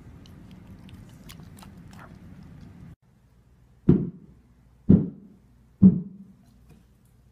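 A husky faintly chewing a treat, a few small clicks. Then three loud, deep thuds about a second apart, each dying away briefly.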